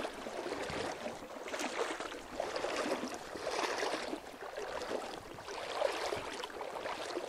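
A person wading through shallow water in waders, the water swishing and splashing around the legs with each step, about once a second.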